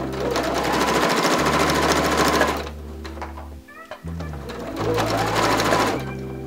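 Electric sewing machine stitching at speed, top-stitching fabric beside a zipper: one run of about two and a half seconds, a pause, then a shorter run of about a second near the end. Background music plays underneath throughout.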